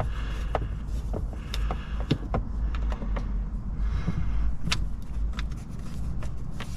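A screwdriver working a screw out of a car's center console trim: scattered small clicks and scrapes over a steady low rumble.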